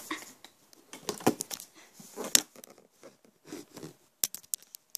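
Handling noise from a phone held in the hand: rustling against fingers and bedding, with a few sharp clicks and knocks and a quick run of clicks near the end.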